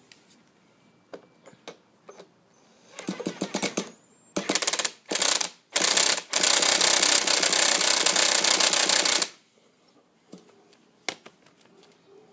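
Small nitro engine of a 1/5 scale RC motorbike being cranked over by its starter in bursts, a fast mechanical rattle: a short one, two brief ones, then a long one of about three seconds that cuts off abruptly, with no sign of the engine firing. It is a failed start attempt on a bike whose clutch and drivetrain lock up.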